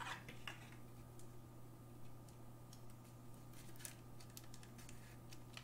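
Faint, irregular clicks and taps from hands handling things at a desk, over a steady low hum.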